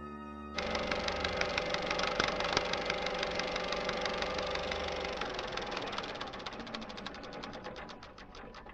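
Old cine film projector sound effect: rapid, even clattering of the film mechanism over a running hum, starting suddenly about half a second in, then slowing and fading as the projector runs down.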